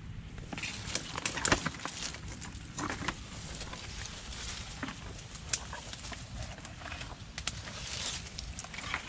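Twigs and leaves of mangrove undergrowth crackling and snapping as they are pushed through and handled, a scattered run of sharp cracks, loudest about a second and a half in.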